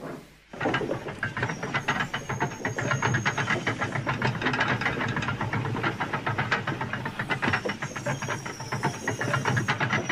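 A steam engine on a railway turntable being turned: a rapid, continuous clattering rattle with a hiss, starting about half a second in. A faint high whine comes and goes.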